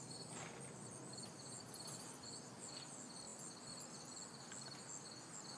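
Faint insect chirping, high-pitched and pulsing steadily, over a light background hiss.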